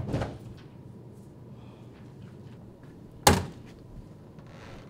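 A door thudding shut: a softer knock at the very start, then one loud, sharp bang about three seconds in, over a low room hum.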